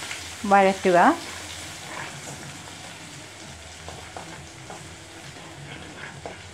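Ginger-garlic paste sizzling as it fries in hot oil in a pan, stirred with a slotted spatula, with a few light scrapes and clicks of the spatula against the pan.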